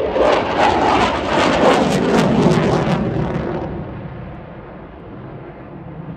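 Saab JAS 39 Gripen fighter jet's engine roaring overhead during a display manoeuvre, with a harsh crackle for the first three seconds. The roar then fades to a duller, lower rumble as the jet pulls away.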